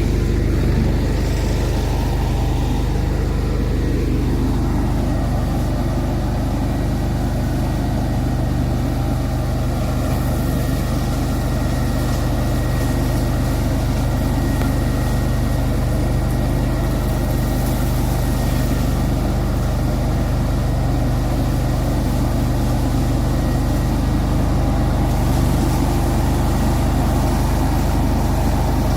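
Remote-controlled mower's engine running steadily, a constant low drone throughout.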